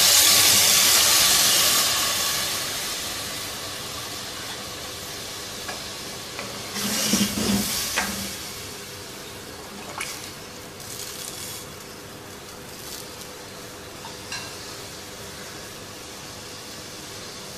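Hot chicken stock hitting a pot of fried chicken and spices, sizzling loudly at first and dying down over a few seconds to a steady low bubbling simmer. A metal ladle stirs and knocks against the aluminium pot about seven to eight seconds in, with a couple of single clinks later.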